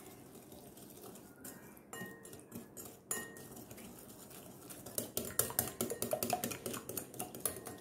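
Wire whisk beating sugar and yogurt in a glass bowl: soft scraping with a few clicks at first, then from about five seconds in the whisk's wires tick quickly and steadily against the glass.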